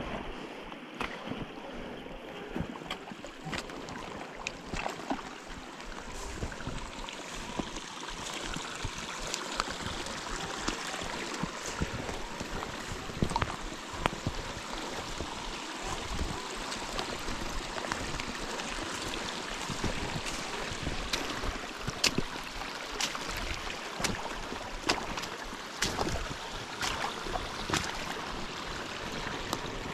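A small creek running between snowbanks, a steady rush of water, with frequent short crunches and snaps of footsteps in snow and brush over it.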